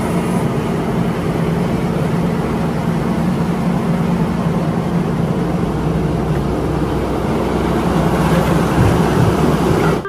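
Large crawler excavator's diesel engine running steadily under load as it digs rock. A deep, even drone with a noisy wash over it, growing a little louder near the end.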